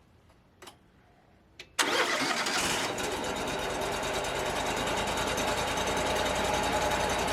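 Wood-Mizer LT35 portable sawmill's engine starting about two seconds in, after a couple of faint clicks, then running steadily.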